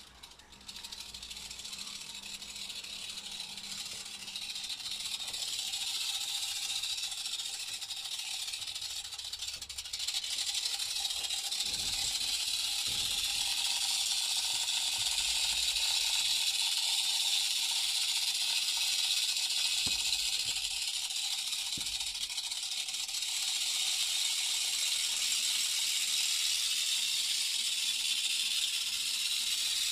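Basilisk rattlesnake (Crotalus basiliscus) giving a warning rattle with its tail: a continuous high buzz that grows louder over the first ten seconds, then holds steady. A few soft low knocks come through in the middle.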